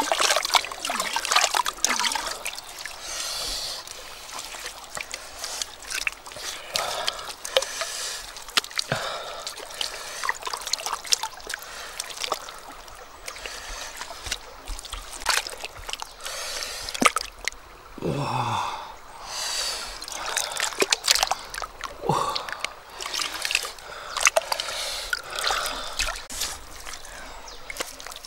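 Bare hands scooping and slapping wet mud and shallow river water, with irregular squelches, splashes and dripping.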